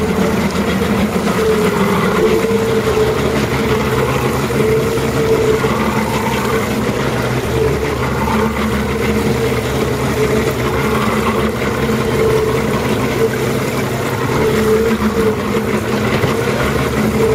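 Boat motor running steadily at low speed, with a wavering hum and wind and water noise.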